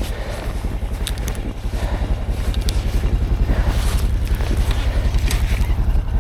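Snowmobile engine running with a steady low pulsing rumble that grows a little louder, with a few short clicks and scrapes over it.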